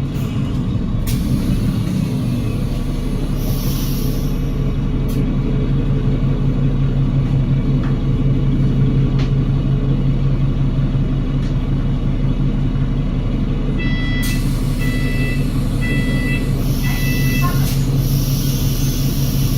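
Cummins L9 diesel engine of a Voith-geared Enviro500 MMC double-decker bus running with a steady low drone, heard from on board. Two stretches of air hiss, and a run of short high electronic beeps about two-thirds of the way through.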